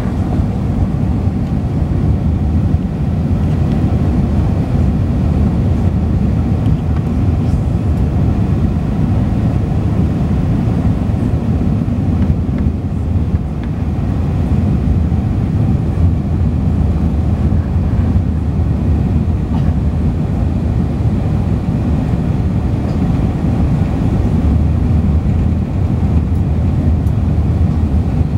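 Steady low rumble of cabin noise inside an Airbus A380-841 on approach: engine and airflow noise from its Rolls-Royce Trent 970 engines, even and unbroken.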